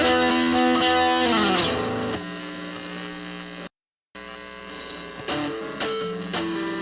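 Guitar music: the final notes of one song ring and fade, there is a half-second of silence just under four seconds in, then the next song starts with picked guitar notes.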